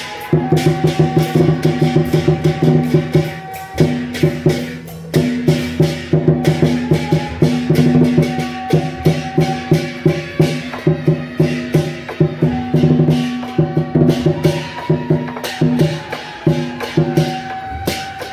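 Taiwanese temple-procession music: fast, steady percussion strikes over a held low melody, loud throughout.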